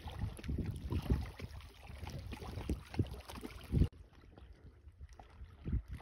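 Small river waves lapping, with low wind rumble on the microphone: an uneven wash with soft low knocks. About four seconds in the sound drops off suddenly at a cut and goes on more quietly.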